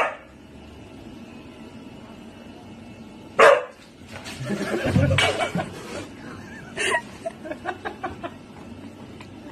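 Husky barking: one sharp bark about three and a half seconds in, a rougher, noisier stretch around five seconds, and another short bark near seven seconds followed by a run of small quick sounds.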